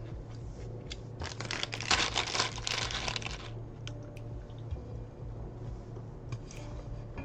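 A plastic bag crinkling and rustling for about two seconds, with scattered light clicks before and after, as of Lego pieces being handled.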